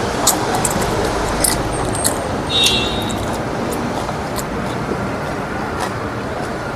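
Steady road traffic noise in the background, with scattered small clicks and a short high ringing clink about two and a half seconds in.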